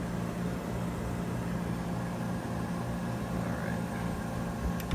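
Vintage Frigidaire window air conditioner running: a steady low hum of compressor and fan, with a faint click near the end.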